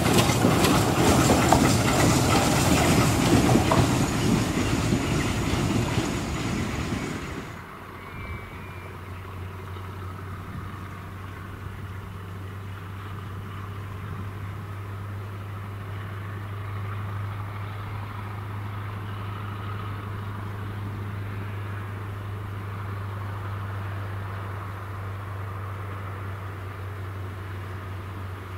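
Train passing close by: a loud rushing rumble with rapid clatter from the wheels on the rails. It cuts off abruptly about seven seconds in, leaving a steady low hum for the rest of the time.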